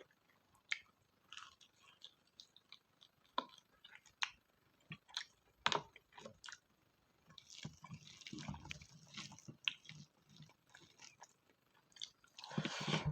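Close-miked wet chewing of spicy pork fat, with scattered smacks and crunchy clicks, a denser stretch of chewing partway through and a louder, noisier burst near the end.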